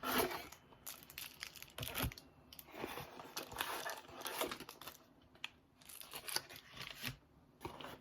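Trading card pack wrappers being torn open and crinkled by hand: irregular tearing and rustling, with a couple of brief pauses.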